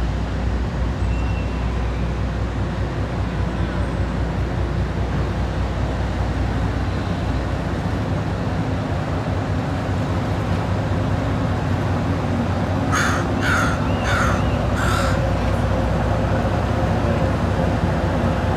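A crow cawing four times in quick succession, over a steady background of noise and low hum.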